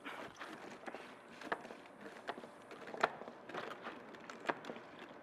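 Plastic plunger of a sangria pitcher worked up and down through its lid, giving irregular plastic clicks and knocks.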